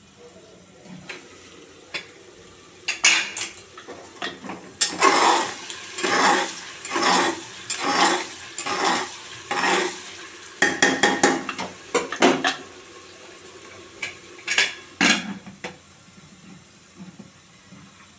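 A metal spoon stirring and scraping onions and spices frying in an aluminium pressure cooker, with clinks of metal on metal. Even scraping strokes come about once a second through the middle, followed by quicker clinks and two sharp knocks near the end.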